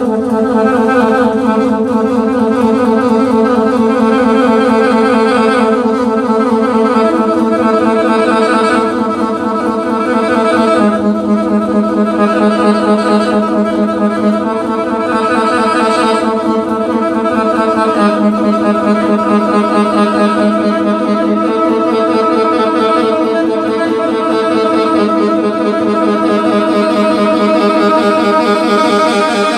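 Instrumental music from a live band: dense held chords that come in suddenly and change every three to four seconds, with no singing yet.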